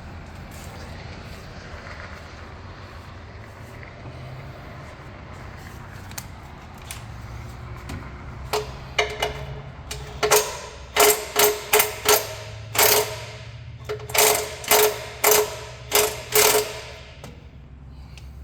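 A hand ratchet wrench worked in short strokes, giving a run of sharp ringing ratchet clicks about two a second through the second half, over a steady low hum.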